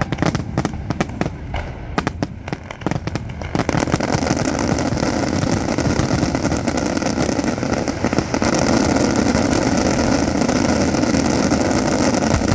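Fireworks display: a run of separate sharp bangs, then from about three and a half seconds in, a dense, unbroken barrage of crackling.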